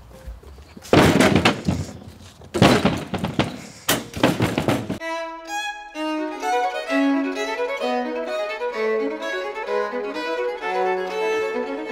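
A few loud thuds and clattering rustles of split wood and leafy branches being handled and gathered. About five seconds in, this cuts to classical string music with a violin.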